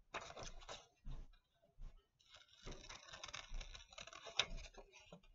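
A sheet of printer paper rustling and crinkling as it is handled, then scissors snipping into it in the second half.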